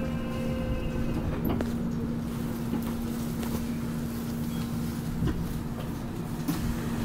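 Seoul Metro Line 3 subway train running between stations, heard from inside the car: a steady rumble with an even low hum and a few faint clicks.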